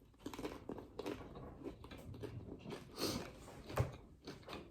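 A person chewing and biting into a taco, with irregular crunches; the sharpest come about three seconds in and again just before four.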